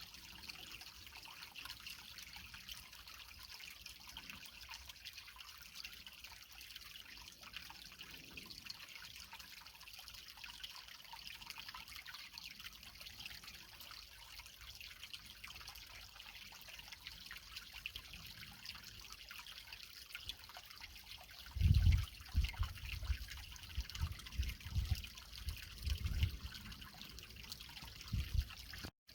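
Creek water trickling and splashing over rocks in a steady, even hiss. In the last several seconds a run of irregular low rumbles comes in, louder than the water.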